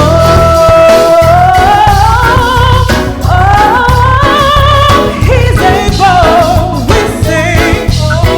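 Gospel singing with band accompaniment. A voice holds a long steady note, then climbs through runs with wide vibrato over a steady bass and beat.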